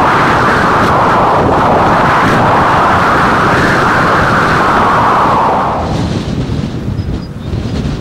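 Severe gusting wind buffeting the microphone, a loud steady rush that eases about six seconds in.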